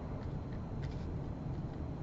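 Low, steady room noise with a couple of faint ticks about a second in; no speech.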